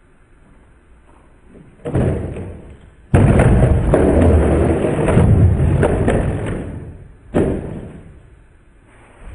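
Skateboard being slammed onto a carpeted floor: a sudden thud about two seconds in, then a much louder, longer crashing clatter, and another thud near the end.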